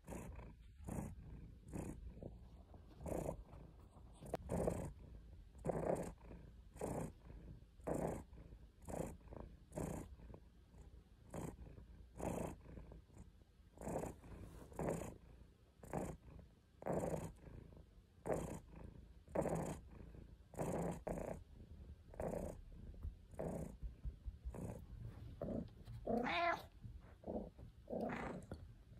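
A British Shorthair cat purring close up, the deep rumble swelling and fading with each breath about once a second. Near the end it gives two short meows.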